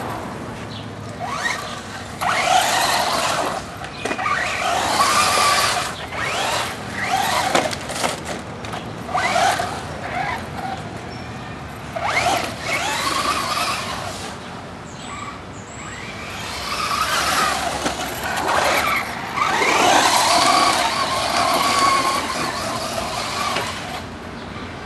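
Traxxas Slash 4x4 electric RC short-course truck being driven in repeated bursts: a high-pitched whine from its drivetrain rises and falls with each run of the throttle, about seven times, with noise from the tyres and ground.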